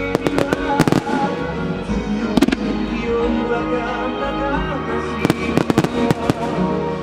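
Aerial firework shells bursting over music. Several sharp bangs come in quick succession in the first second, then a couple about two and a half seconds in, and another rapid cluster around five to six seconds in.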